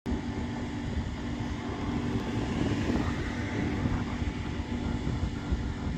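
Mercedes-Benz Actros truck running on the road: a steady drone of engine hum and road rumble.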